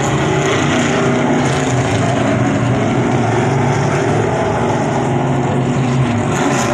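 Stock car engines running at racing speed around a paved short oval: a loud, steady engine note that rises and falls slightly as the cars circle the track.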